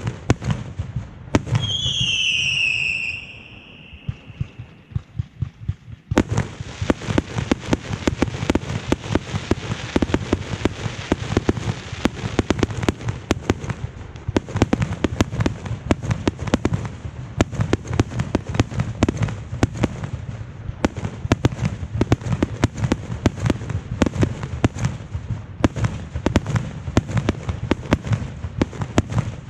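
Fireworks going off: a few bangs, then a shrill whistle that falls slightly in pitch for about a second and a half. From about six seconds in comes a dense barrage of rapid sharp reports, many a second, over a low rumble.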